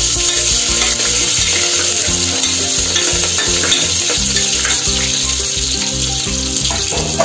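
Sliced small onions sizzling as they fry in hot oil with whole spices in an open pressure cooker, stirred with a spoon. Background music plays underneath.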